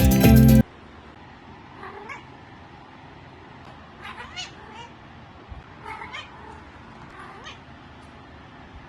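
Domestic cat meowing: short rising-and-falling calls in small groups, about ten in all. Backing music cuts off suddenly under a second in.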